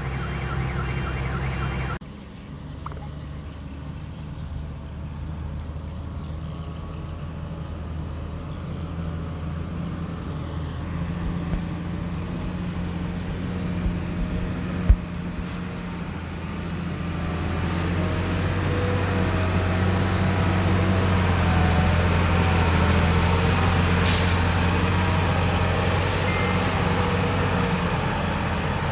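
Heavy diesel construction machinery engines running steadily and growing louder in the second half. There is a sharp thump around the middle and a brief hiss near the end.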